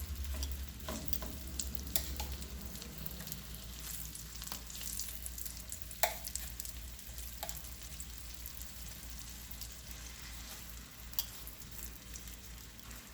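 Thinly sliced chicken breast searing in melted butter in a non-stick pan: a steady sizzle with crackling, broken by a few sharp taps, the loudest about six seconds in.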